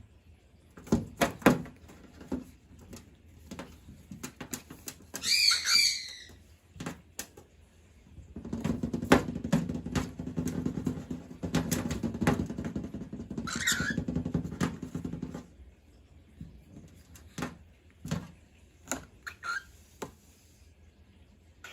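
Cockatiels giving short chirping calls a few times, among sharp taps and clicks of claws and beaks on a hard surface. A longer stretch of scraping and rustling runs through the middle.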